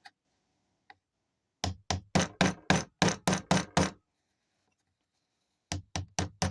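Mallet striking a sterling silver ring on a ring mandrel to round it out: a run of about ten quick knocks, roughly four a second, then a pause of nearly two seconds and another run starting near the end.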